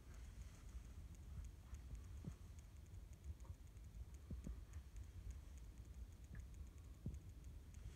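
Near silence in the cabin: a faint low rumble under soft, fast high ticking, with a few light knocks.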